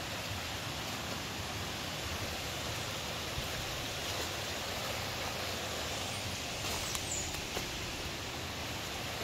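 Steady rushing of a rocky river's rapids, an even hiss of water.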